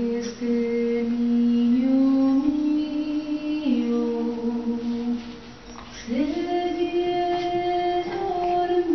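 Background music: a slow song in which a woman's voice holds long, steady notes that step up and down in pitch, with a brief pause about five seconds in.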